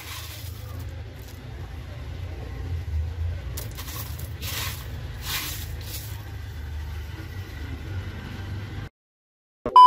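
A hand scraping through a pile of hailstones on a tiled floor, with a few sharp hissing scrapes in the middle, over a steady low rumble. The sound cuts off near the end, followed by a brief loud beep.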